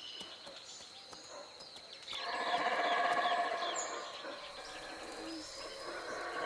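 Guatemalan black howler monkeys roaring, a rough drawn-out chorus that starts about two seconds in, dies down, and swells again near the end. Birds chirp over it.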